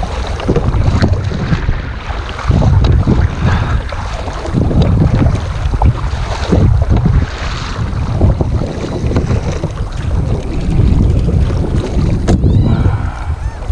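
Wind buffeting the microphone in uneven gusts over water sloshing against a sea kayak. Near the end comes a sharp click, followed by a few short high chirps.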